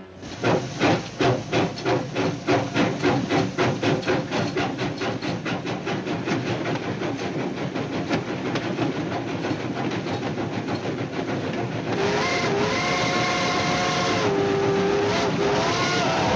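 Cartoon sound effect of a steam locomotive pulling away: puffs of exhaust start slow and speed up until they run together into a rushing chug. Then a multi-note steam train whistle blows, bending in pitch, from about twelve seconds in to near the end.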